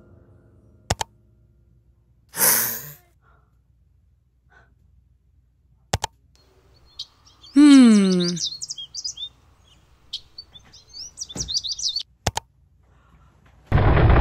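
A string of edited sound effects: a few sharp clicks and a short hiss, then a falling pitched tone with quick high bird chirps around the middle and again later. Near the end a loud, dense noise starts abruptly.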